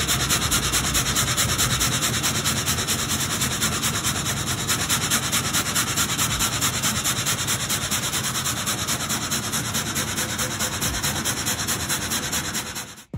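Gebr. Linck multi-blade frame saw sawing a log into boards. A dense, steady hiss of many blades cutting through the wood pulses evenly several times a second with the up-and-down strokes of the blade frame.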